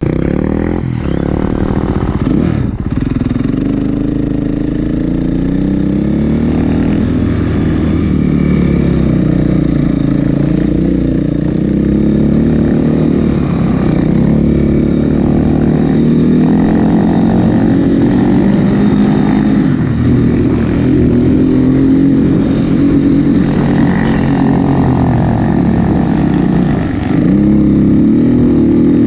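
Snowbike's dirt-bike engine running under load up a snowy trail. Its pitch rises and falls again and again as the throttle is worked.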